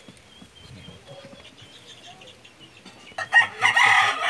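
A rooster crowing once, loudly, beginning about three seconds in, after a stretch of faint background sound.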